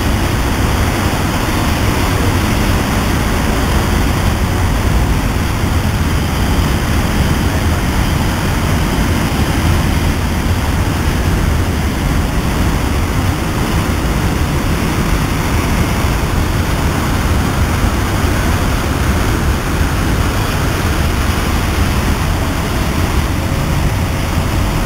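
Freight train of tank wagons passing, a steady loud rumble of wheels on the rails.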